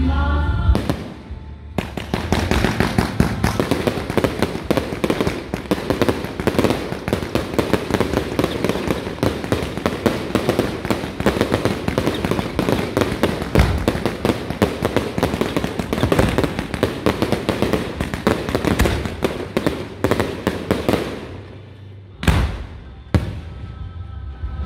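Firecrackers crackling in a long, dense, rapid barrage that runs for nearly twenty seconds, then stops. A few separate loud bangs follow near the end.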